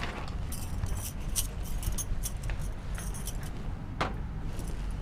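Whiteboard eraser wiped across a whiteboard in quick scrubbing strokes, giving short scratchy rasps, then one sharp knock about four seconds in, over a steady low hum.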